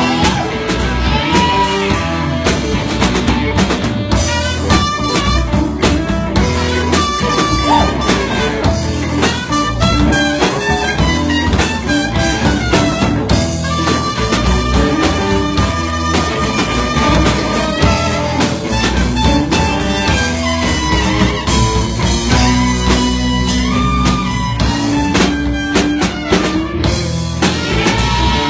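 Live blues-rock band playing an instrumental passage with no vocals: electric guitars over a drum kit.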